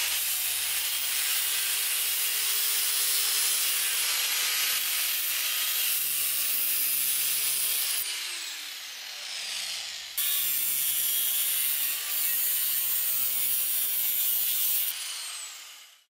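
Angle grinder with a thin cutoff wheel slicing through the sheet-steel can of a spin-on oil filter held in a vise: a steady, high, hissing grind of the disc on thin metal. It eases off briefly a little past the middle, comes back sharply about ten seconds in, and stops just before the end.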